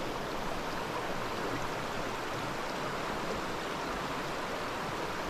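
A small river running over stones: a steady rush of water.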